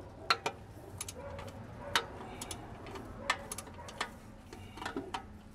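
Scattered sharp clicks and light knocks, about ten at uneven intervals, from hands and a tool working at the black plastic side panel of a generator to free its last bolt.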